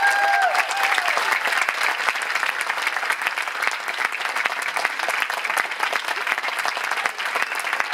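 Audience applauding, a dense steady clapping with a few voices cheering in the first second.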